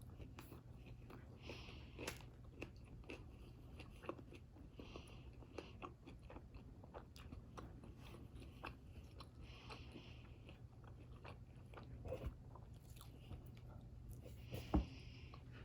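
Chewing and biting into a sandwich, with small wet mouth clicks throughout and a sharper click near the end.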